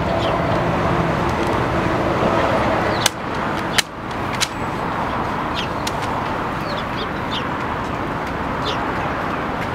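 Outdoor ambience with a steady background hum, faint murmur of people's voices, and short, falling bird chirps every second or so. Three sharp clicks come between about three and four and a half seconds in.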